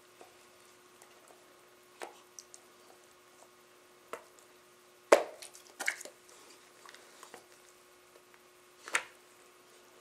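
Dogs play-fighting: a few scattered short, wet mouthing and smacking sounds, the loudest about halfway through.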